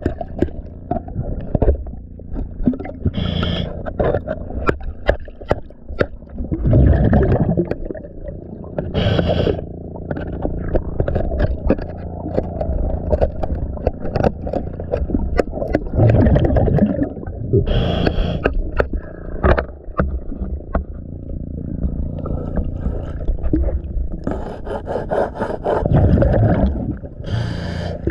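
Underwater, a hand scraper scratching and clicking against a barnacle-fouled slotted intake strainer on a boat's hull. A scuba regulator's breathing, hissing in and rumbling out in bubbles, swells over it every few seconds.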